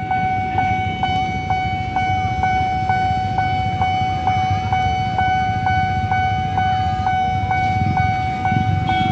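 Railway level-crossing warning bell ringing a fast, steady ding, about two strikes a second, over the low rumble of idling motorcycles waiting at the crossing.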